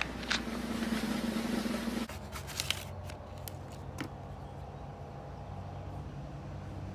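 For about two seconds, the steady hum and hiss of an old TV broadcast soundtrack; it cuts off abruptly. Then stiff paper cards are handled: a few sharp clicks and rustles, over a steady low outdoor rumble.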